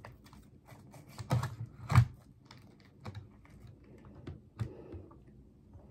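Plastic spoon scraping and tapping in a small plastic dessert cup while scooping up chocolate mousse and cookie crumble: irregular light clicks, with two louder knocks about a second and a half and two seconds in.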